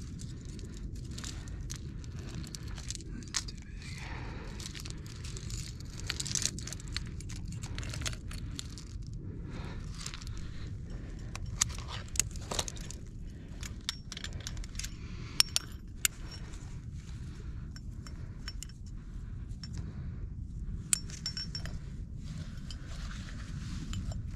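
Metal climbing gear (carabiners, nuts and cams on a climber's rack) jingling and clinking as protection is handled at the crack and the rope is clipped, with sharper clicks now and then. Under it runs a steady low wind rumble on the microphone.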